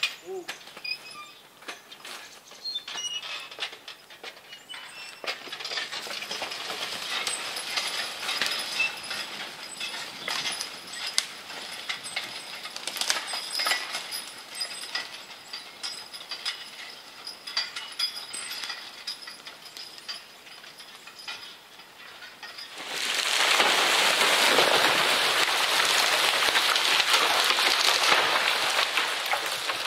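Draft-horse team pulling a logging forecart with a log dragging behind, harness and chains clinking with scattered small knocks as it moves off. About three-quarters of the way through, a louder steady rushing noise takes over.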